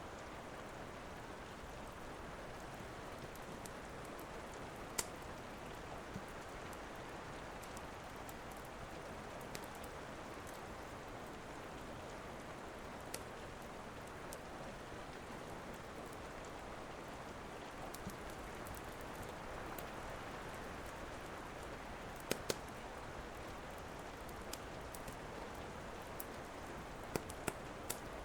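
Steady rain with a few sharp pops from a crackling wood fire, two pairs of them close together in the second half.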